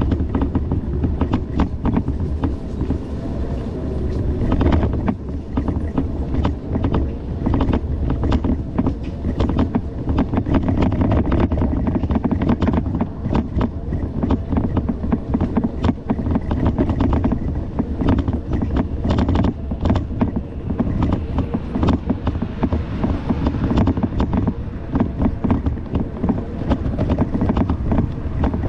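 Bicycle ridden over a bumpy grass towpath: a steady low rumble with constant knocks and rattles as the wheels jolt over the rough ground, and wind buffeting the microphone.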